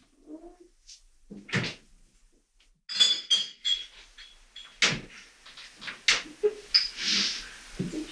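A door opening and shutting and glass beer bottles clinking, with several knocks and clicks. A short hiss comes near the end.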